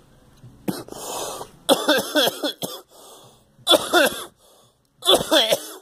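A person coughing hard in four rough, wheezy bouts, the voice breaking through each one: a lingering chesty cough that brings up phlegm.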